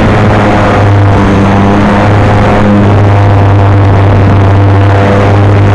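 Motor and propeller of a radio-controlled model Cessna in flight, heard from a camera on the plane: a loud, steady drone with a rushing hiss over it.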